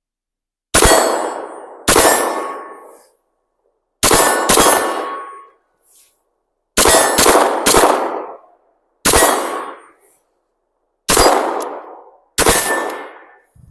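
CZ P-10 9mm pistol firing a magazine of 115-grain Federal ammunition: about ten shots, a few in quick pairs, each ringing out and dying away over about a second.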